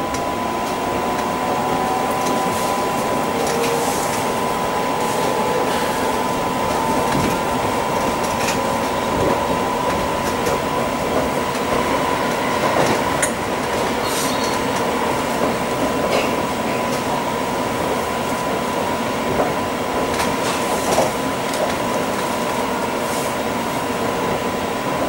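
Class 345 (Bombardier Aventra) electric train running between stations, heard from inside the carriage: a steady rolling noise with a steady whine and a few scattered clicks from the wheels over the track.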